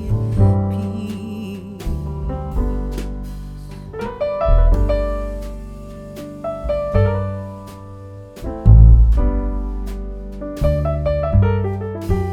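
Instrumental background music led by piano, with a deep bass line and notes changing about every half second.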